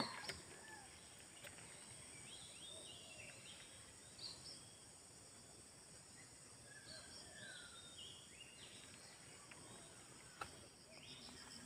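Faint outdoor ambience: scattered short bird chirps over a steady high insect hum, with one sharp click near the end.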